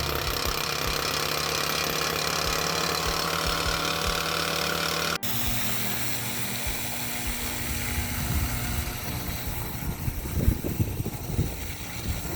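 Small gas engine of a Titan post driver running steadily. About five seconds in the sound cuts off abruptly and gives way to a quieter engine sound with irregular knocks toward the end.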